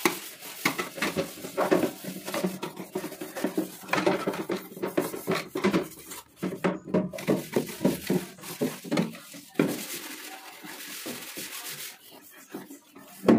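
Soapy scrub pad rubbing against the inside of a clear plastic tub in quick, uneven back-and-forth strokes. One sharper, louder sound comes just before the end.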